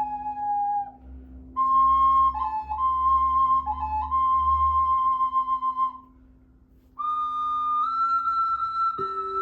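A flute playing slow, long-held notes in three phrases over a steady low drone, with short dips to a lower note in the middle phrase and a brief pause about six seconds in before a higher phrase begins.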